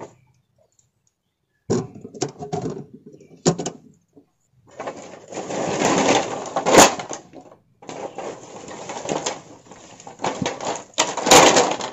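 Handling noise: a few sharp clicks and knocks, then rustling and scraping that breaks off briefly and resumes, with louder knocks in it.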